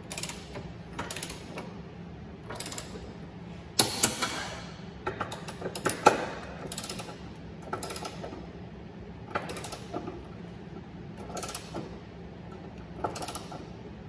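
Hand ratchet wrench clicking in short runs, roughly one stroke a second, with sharp metal clicks, as bolts on the car's rear subframe brackets are run down and torqued. A faint steady hum runs underneath.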